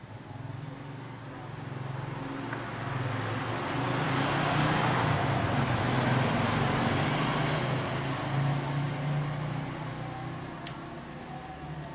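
Electric sewing machine running under its motor, getting louder as it speeds up, holding steady, then slowing down; a single sharp click near the end.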